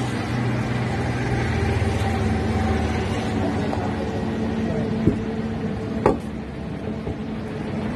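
A motor vehicle's engine running: a steady hum. Two short sharp knocks come about five and six seconds in.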